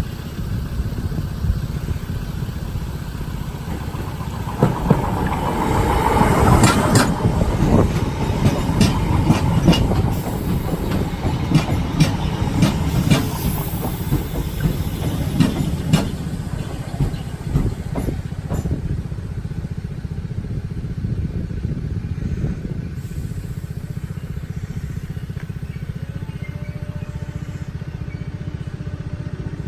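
Train passing over a level crossing: a steady low rumble with a run of sharp wheel clicks over the rail joints, loudest about five to eight seconds in, dying away after about twenty seconds while the rumble goes on.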